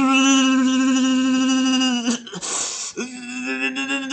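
A man's voice holding a long, steady sung note for about two seconds. It breaks off into a short breathy noise, then a second held note comes in about three seconds in.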